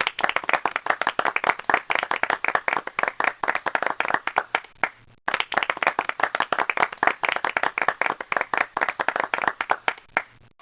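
Applause: many hands clapping, the separate claps distinct, in two runs of about five seconds that each thin out, with a brief break about halfway through.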